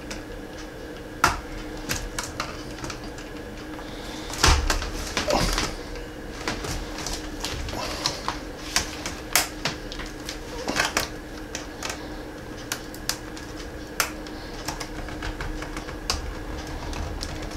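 Irregular plastic clicks and snaps as a replacement laptop keyboard is pressed down and seated into its palmrest, with a louder bout of clicking about four and a half seconds in. A faint steady hum runs underneath.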